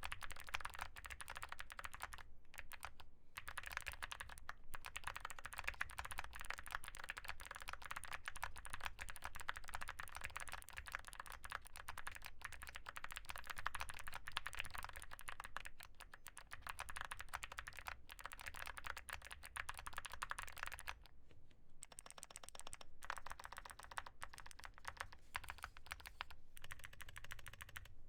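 Steady, fast typing on a custom mechanical keyboard with Gateron Melodic clicky switches in a Feker Galaxy80 case with Womier MOA keycaps: a dense run of crisp keystroke clicks. The typing breaks off briefly about two seconds in and again around twenty-one seconds.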